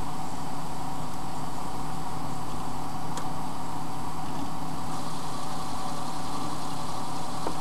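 A steady mechanical hum with a few steady tones in it, and a brief click about three seconds in.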